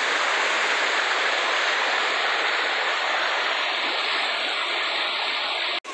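River water rushing over a rocky ledge in a small cascade, a steady rush with no change, broken by a brief dropout near the end.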